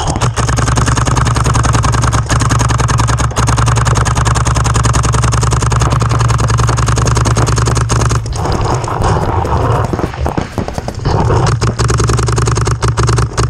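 Paintball markers firing in rapid streams, a dense crackle of shots with a steady low rumble underneath. The crackle eases briefly a couple of times in the second half.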